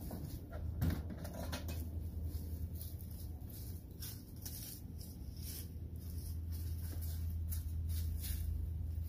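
A steady low rumble with scattered light rustles and clicks, and a knock about a second in as a metal pot is set down on a makeshift stove top.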